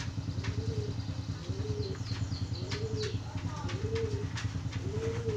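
A dove cooing, a low arched coo repeated about once a second, over a steady low hum, with light clicks and rustles of things being handled.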